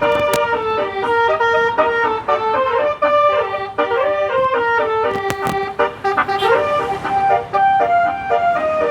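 A bus's telolet basuri musical air horn playing a tune, a continuous run of held notes stepping up and down in pitch.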